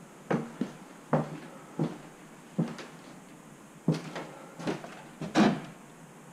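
Footsteps on bare wooden boards: about nine heavy, uneven thuds, the loudest about five seconds in.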